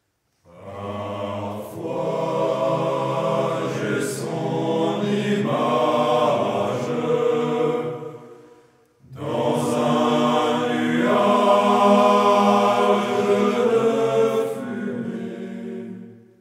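Choir singing a slow French song in two long phrases, with a short break about nine seconds in.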